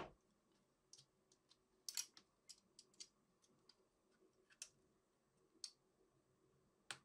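Faint, irregular clicks and light taps of fine metal tweezers working against a hard plastic miniature, about a dozen small ticks with quiet between them.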